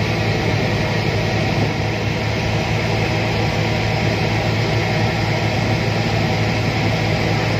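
Boat's diesel engine running steadily, a constant low hum under a loud even rush of engine, water and wind noise.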